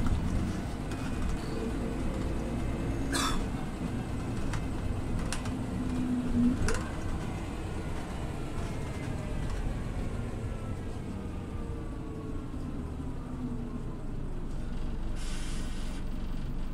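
Scania OmniLink city bus running, with whining drivetrain tones that fall steadily in pitch through the second half as it slows. Sharp clicks come about three and about seven seconds in, and a short hiss comes near the end.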